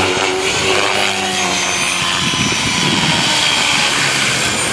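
Align T-Rex 500X electric RC helicopter in flight, descending to land: the main rotor blades and brushless motor give a steady hum with a high whine.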